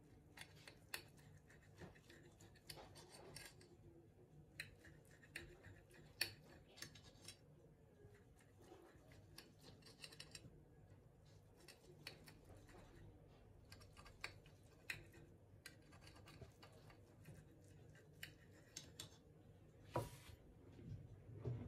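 Knife cutting through a crisp pan-fried leek fritter on a ceramic plate: faint, irregular crunching and scraping, with scattered clicks of the blade against the plate and one sharper tap near the end.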